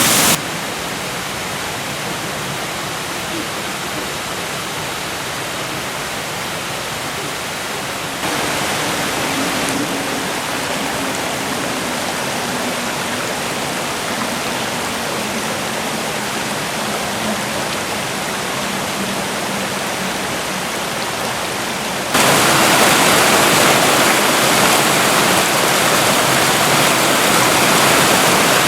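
Steady rushing of the Kibune River, a mountain stream, as an unbroken wash of water noise. The level jumps abruptly about eight seconds in and again near the twenty-two-second mark, as if cut between spots along the river.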